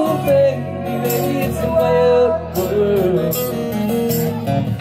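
Live band music: acoustic and electric guitars playing chords under a male voice singing a melody line.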